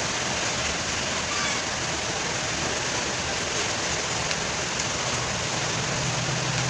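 Steady rushing background noise, like a fan or running air, with no distinct events; the impact wrench is not running.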